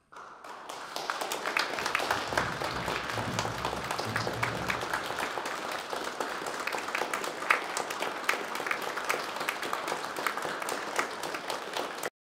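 Audience applauding, the clapping swelling over the first second and then holding steady until it cuts off abruptly near the end.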